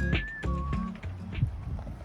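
Background music: a high, whistle-like melody over bass notes and a steady beat.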